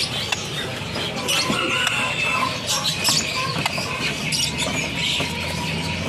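Many small caged songbirds chirping and twittering together in quick, overlapping high calls, with a few short whistled notes, over a low steady hum.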